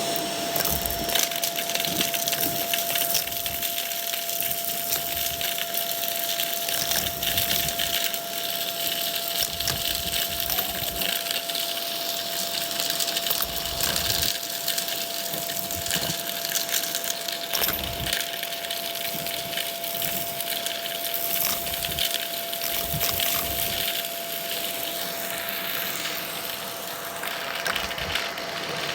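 Vacuum cleaner running with a steady whine while crunchy debris crackles and rattles up the nozzle.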